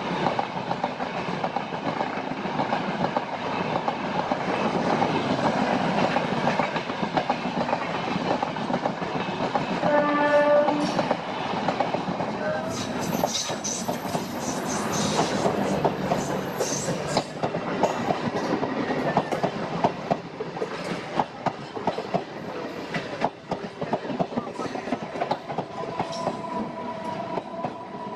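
Passenger trains running past at close range, wheels clattering over rail joints in a steady stream of clicks, with a short train horn blast about ten seconds in. Near the end a steady two-note tone sounds.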